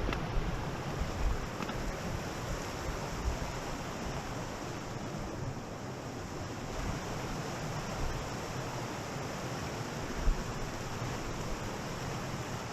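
Steady rushing of a waterfall, with occasional low rumbles of wind on the microphone.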